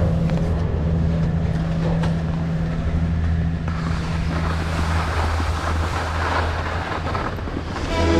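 A steady low hum, joined about four seconds in by a rushing noise that grows stronger.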